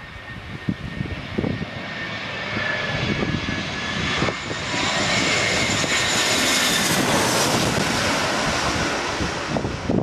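Twin-engine jet airliner on final approach, gear down, passing low overhead: a rumble and high engine whine that grow steadily louder to a peak over the second half.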